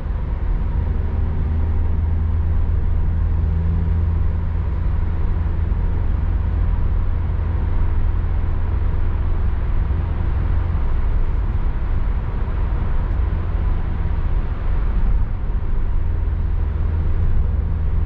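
Steady road and engine noise of a moving car heard from inside the cabin: a constant low rumble with tyre hiss, no changes.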